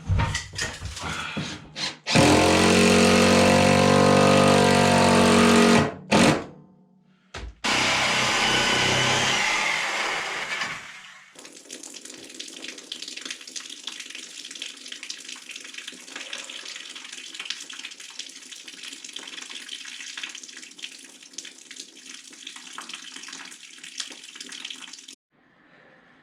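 Reciprocating saw (Sawzall) cutting through heavy old drain pipe: two loud runs of the saw motor with a short break between, then a longer, quieter stretch of rattling and clicking.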